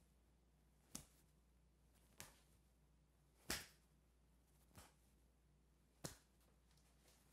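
Hands slapping against the body, on the shoulder and the lower back, as the arms swing around in a standing twist: five soft slaps, about one every 1.2 seconds, the middle one the loudest.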